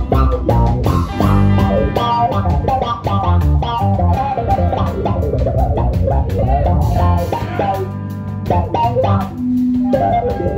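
Live band playing with electric guitars, bass guitar and a drum kit, loud and continuous.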